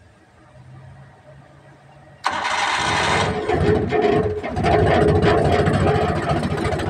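A Multicab's small petrol engine, cranked by a starter motor just repaired with an improvised bushing, fires suddenly about two seconds in and keeps running fast and loud: the starter now works.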